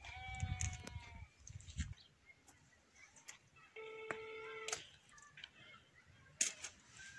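Livestock bleating: a short call that falls slightly in pitch at the start, then one long, steady call about four seconds in.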